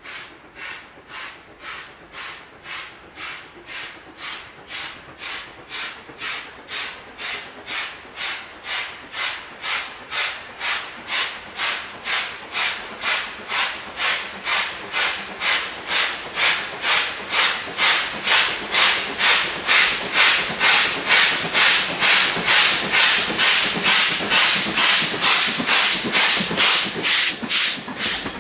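Steam locomotive 1501, a BR-built GWR 15xx-class 0-6-0 pannier tank, working hard as it pulls away with a goods train: sharp exhaust beats at a steady two to three a second, growing louder as it approaches.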